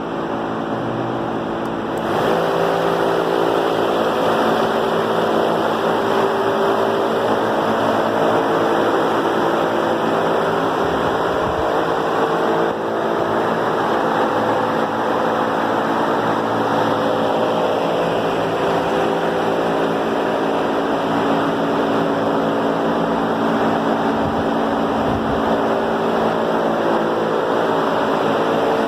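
Large industrial wall fan for poultry houses running: a steady rush of air over a hum of several steady tones, getting louder about two seconds in.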